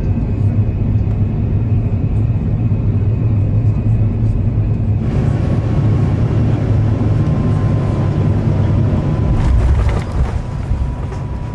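Airbus A350-900 cabin noise on descent: a steady low rumble of the Rolls-Royce Trent XWB engines and airflow. About halfway through it turns hissier, with a faint steady tone.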